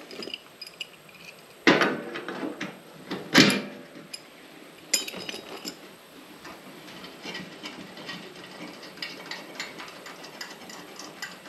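Bolts and washers being handled and turned by hand in the bolt-on sump flange of a metal fuel cell: scattered small metal clicks and ticks, with sharper knocks about one and a half, three and a half and five seconds in, the one at three and a half seconds the loudest.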